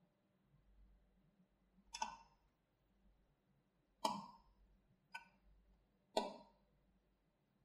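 Screws being taken out of a mini PC's bottom panel with a small screwdriver: three sharp, briefly ringing metallic clicks about two seconds apart, with a fainter click between the last two.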